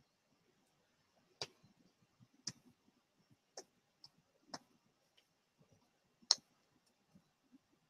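Small laser-cut acrylic pieces clicking against each other and the base as they are handled and fitted: about seven sharp, irregularly spaced clicks, the loudest about six seconds in.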